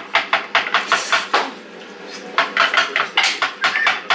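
Rhythmic knocking of a kitchen utensil, about four to five strikes a second, as food is pounded or chopped. The knocks stop for about a second in the middle, leaving a soft hiss, then resume.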